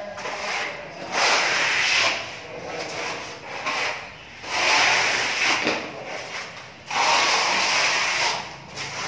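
Several long rubbing, scraping strokes of a hand tool on a plastered wall, each lasting a second or more with short gaps between.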